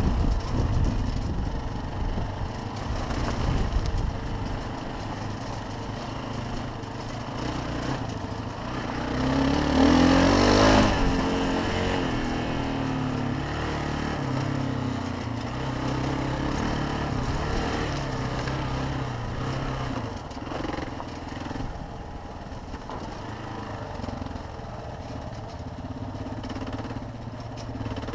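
Motorcycle engine running while riding a gravel trail, heard from a helmet camera with wind on the microphone. The engine revs up and gets louder about ten seconds in, then settles back to a steadier run.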